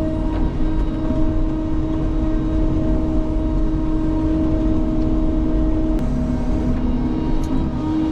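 Sany excavator's diesel engine and hydraulics running under work, a steady drone with a held whine that drops away about six seconds in.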